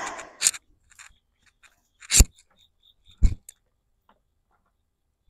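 Handling sounds of picking snake gourds off the vine: a short rustle of leaves and stems with a click, then two sharp knocks about a second apart.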